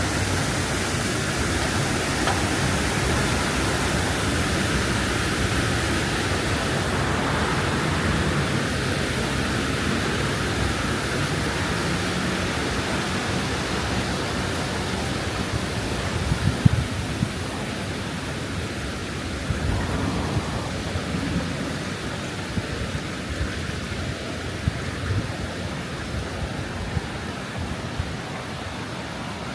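Steady rush of flowing canal water, easing slightly toward the end, with a few light knocks from about halfway on.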